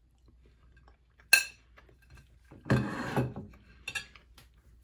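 A metal fork clinks sharply against a plate about a second in, with a brief metallic ring. Near the middle comes a longer scraping clatter of cutlery on the plate, then a few lighter clicks.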